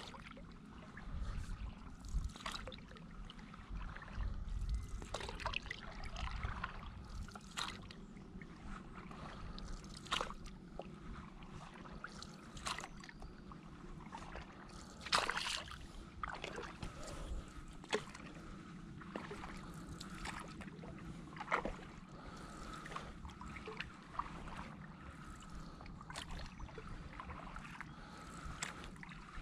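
Stand-up paddleboard paddle stroking through calm lake water: the blade dips, pulls and lifts out with a light splash and dripping, about every two and a half seconds.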